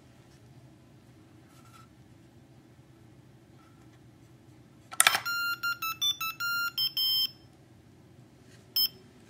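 The solenoid-released door of a homemade humane mouse trap snaps shut with a sharp clack, and the trap's piezo buzzer at once plays a quick run of electronic beeps at changing pitches for about two seconds: the alert that the trap has been tripped. One more short beep follows near the end.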